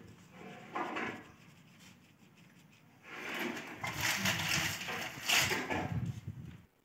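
Plastic baby walker rolling over a rough concrete floor, its wheels and frame rattling for a few seconds in the second half before cutting off near the end.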